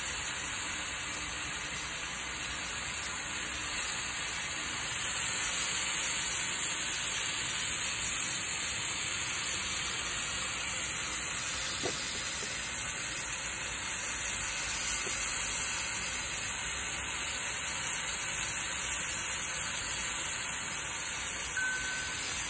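Marinated pork chops sizzling on a hot indoor grill plate: a steady hiss.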